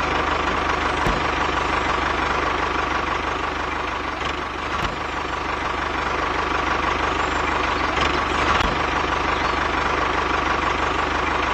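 Tractor engine running steadily at an even, idle-like pace.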